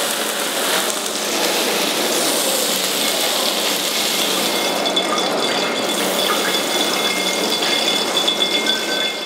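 Beef striploin sizzling in hot oil in a frying pan during searing, a steady hiss, with a thin high whine joining about halfway in.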